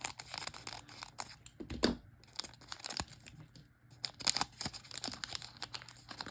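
A trading-card pack wrapper being torn open and crinkled by hand: irregular tearing and crackling, with a louder rustle just before two seconds in.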